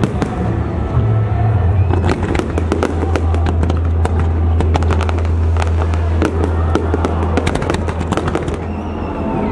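Aerial fireworks shells bursting in quick succession, a dense run of sharp bangs and crackles. Underneath them a long, steady, deep bass note of music holds from about a second in until near the end.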